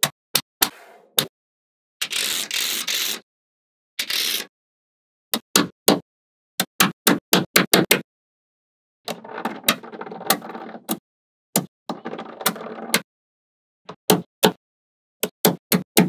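Small magnet balls clicking as they snap onto one another, in sharp separate clicks, some in quick runs of two or three. There are a few stretches of rattling, scraping noise lasting about a second each, the longest in the middle.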